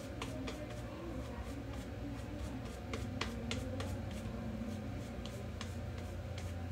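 Shaving brush working lather over the face: soft, squishy brushing with many small irregular crackles and pops. A steady low hum runs underneath.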